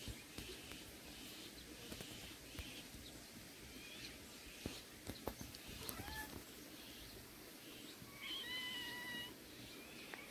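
Kitten meowing: a short call about six seconds in, then a longer, level meow near the end.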